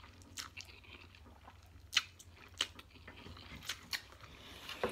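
Close-up eating sounds of a person taking in and chewing a mouthful of spicy instant noodles, with scattered wet smacks and clicks of the mouth.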